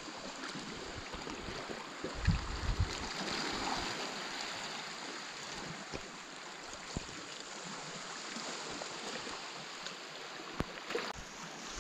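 Water rushing steadily, with a slight swell about three seconds in. A few faint knocks and low gusts of wind hit the microphone.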